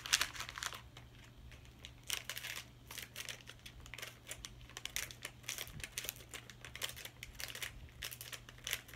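Foil blind bag crinkling and crackling in short irregular bursts as it is handled and opened by hand.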